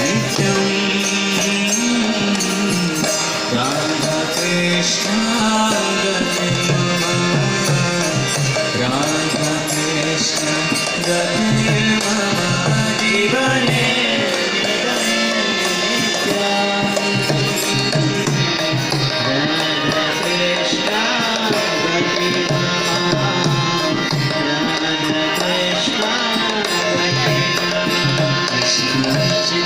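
Devotional kirtan music: singing with hand-drum accompaniment.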